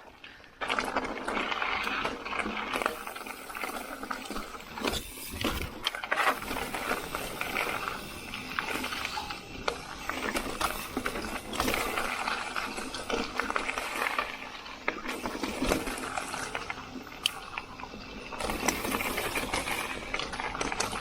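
Riding noise from a carbon full-suspension 29er mountain bike on a rooty dirt trail: a steady rolling rush of the tyres with frequent clicks, knocks and rattles as it runs over roots and rough ground.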